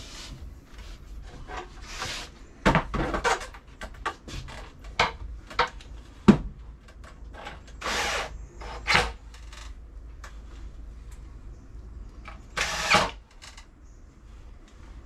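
Cordless drill-driver running in several short bursts, each under a second, driving screws to hang cabinet doors back on their hinges, with clicks and knocks of handling between the bursts.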